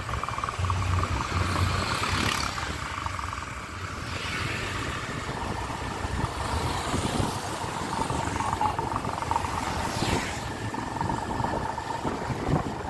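Motorbike engine running steadily while riding along a road, its drone mixed with road and rushing-air noise. A thin steady whine comes in about halfway.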